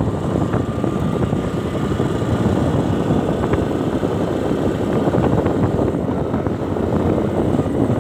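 Motorcycle running at steady road speed, heard from the rider's seat, with wind rushing over the microphone.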